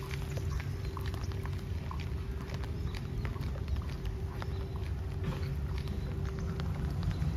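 Steady low rumble with a faint steady hum above it, and scattered light taps and clicks at irregular intervals.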